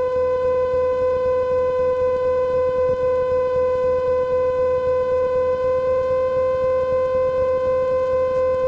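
A single steady, unwavering tone with many overtones, held without a break and cut off abruptly, over the low hum of the Cessna 150's engine in the cabin.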